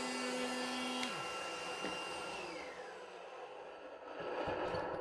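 An electric power tool's motor switched off and spinning down, its hum dropping in pitch about a second in and a higher whine gliding down and fading, followed by light knocks and handling near the end.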